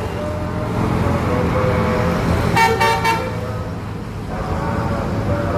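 Basuri telolet bus horn giving three quick toots about two and a half seconds in, over the steady low rumble of a bus engine. A fainter, held horn tone wavers in pitch underneath.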